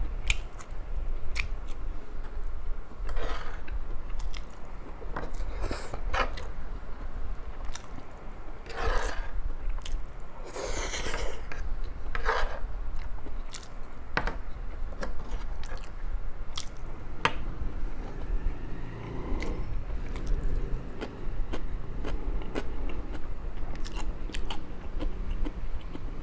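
A person chewing and biting food close to the microphone, with many short, sharp crunches scattered irregularly and a few longer, noisier mouth sounds.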